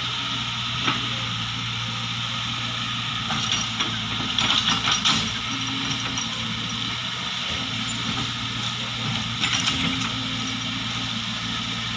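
Chainsaw running steadily at idle between cuts into a coconut palm trunk. Short bursts of crackling are heard about four to five seconds in and again near the end.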